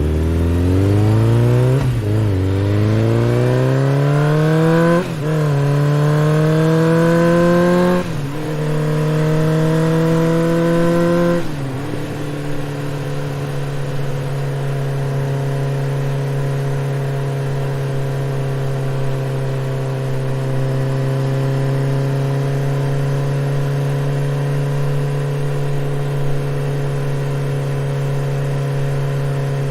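Motorcycle engine accelerating hard, its pitch climbing through the gears with four quick upshifts, then settling to a steady cruise for the rest of the stretch.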